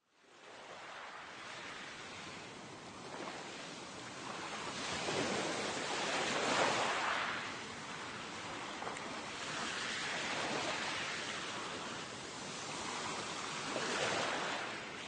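Ocean waves washing in and drawing back, fading in at the start and swelling roughly every four seconds.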